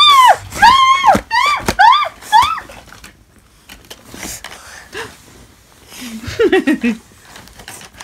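A run of about five high-pitched yelping cries, each rising and falling in pitch, over the first two and a half seconds, then a short lower cry that falls in pitch about six seconds in.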